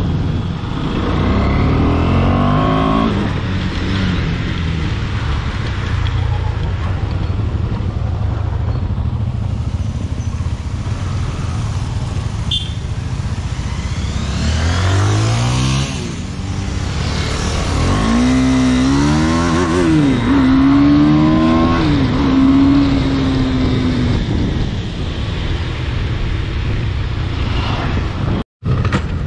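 Motorcycle engine under way, its pitch rising several times as it accelerates through the gears, over steady wind and road noise.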